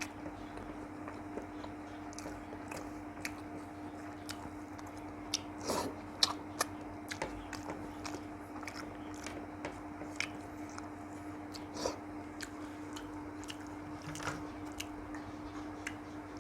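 Close-miked chewing and eating: scattered wet mouth clicks and smacks of a person eating rice and curry, with a brief run of louder ones about six seconds in. A steady low hum runs underneath.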